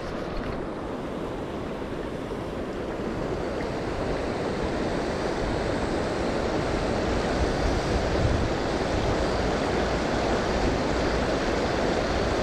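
River water rushing: a steady, even noise that grows slowly louder.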